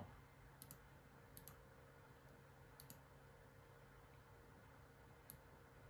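A handful of faint computer mouse clicks, some in quick pairs, over near-silent room tone.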